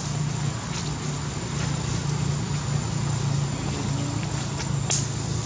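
Steady low engine-like hum with a thin high whine above it and a few light clicks; a brief sharp crackle near the end.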